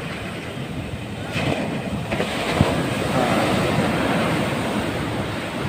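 Large waves breaking and washing up a sandy beach: a steady rush of surf that grows louder about two seconds in as a wave breaks close by, with wind rumbling on the microphone.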